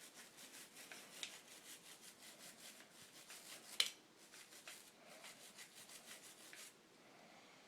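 Small gun-cleaning brush scrubbing part of a Smith & Wesson .357 revolver, a faint run of quick scratchy strokes, several a second, with one sharper click about four seconds in. The scrubbing stops shortly before the end.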